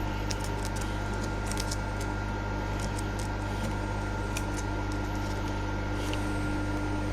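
Steady machine hum with a constant tone, with a few faint light ticks scattered through it.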